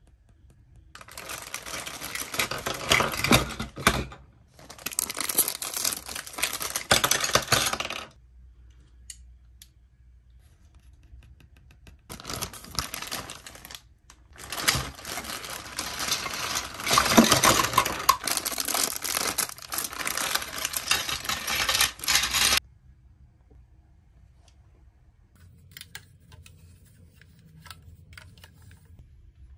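Large plastic building blocks clattering and clicking together as pieces are handled, sorted and pressed into place: dense stretches of rapid clicks in two runs in the first third and a longer run from about twelve to twenty-two seconds, each cutting off abruptly, then only a few faint clicks.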